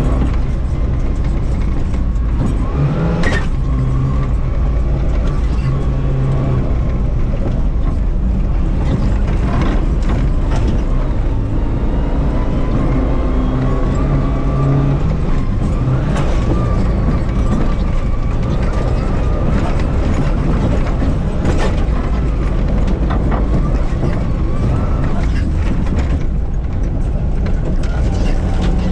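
Rally car engine running hard, heard from inside the cockpit on a gravel track, its pitch rising and falling through gear changes. Scattered sharp knocks from the car on the rough surface.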